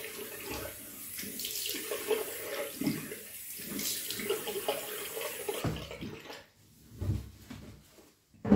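Water running from a tap into a bathroom sink, with uneven splashing, that stops about two-thirds of the way through; after it come a couple of short thumps near the end.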